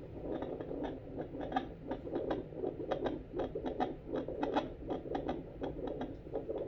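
Handheld fetal Doppler's loudspeaker giving out an irregular scratchy crackle of clicks and rubbing as its probe is moved over the chest, searching for the heartbeat.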